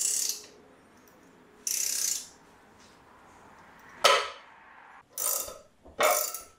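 Socket ratchet clicking in short bursts as it winds in the forcing screw of a harmonic balancer puller on a Nissan RB30's crank pulley, about five strokes, the loudest and sharpest one about four seconds in.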